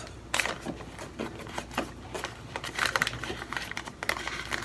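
Plastic bag of starch powder crinkling and rustling as it is handled, in many quick, irregular crackles.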